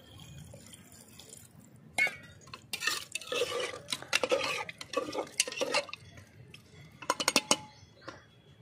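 A metal spatula stirring chana dal and water in an aluminium pressure cooker, scraping and clinking against the pot repeatedly, with a quick run of sharp clinks near the end. A faint pour of water comes before the stirring starts.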